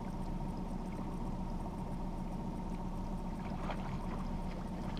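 Boat's outboard motor running steadily at low trolling speed, a constant low drone with a faint steady whine above it, and a few faint short splashes or ticks from about three and a half seconds in.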